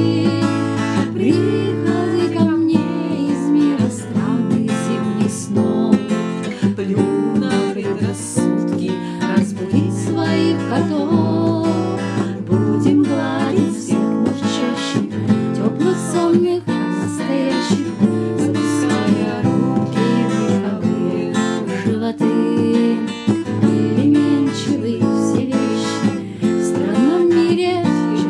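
Acoustic guitar strummed in a steady chord rhythm, accompanying a woman singing a song.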